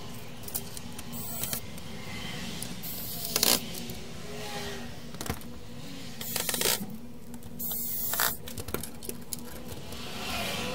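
Handling noise from the open CD player: short scrapes and knocks as its plastic chassis and parts are moved about on the workbench, four or five separate bumps over a steady faint hum.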